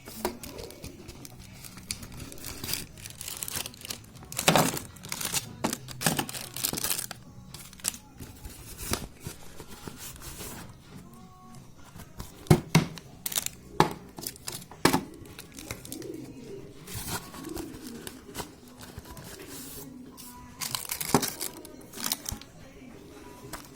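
Plastic packaging crinkling and being torn open in irregular handling noises, with a few sharper crackles and rips.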